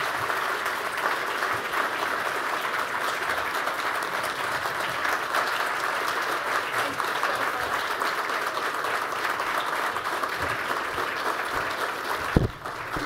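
Audience applauding steadily for about twelve seconds, with a single low thump near the end.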